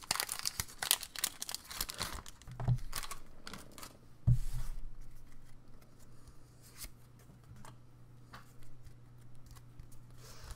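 Foil booster-pack wrapper of a Pokémon trading card pack crinkling and tearing open in a dense run of crackles over the first few seconds, with a dull thump a little after four seconds. After that come softer, scattered rustles and clicks of the cards being slid out and handled.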